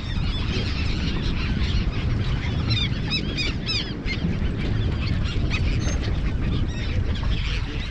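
A flock of birds feeding over a school of striped bass, calling in many short, arched cries that crowd together about three seconds in, over heavy wind rumble on the microphone.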